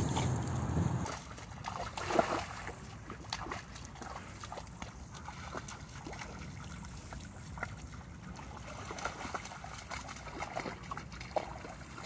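A dog splashing and pawing in shallow water and mud: small, irregular splashes and sloshes, louder in the first second.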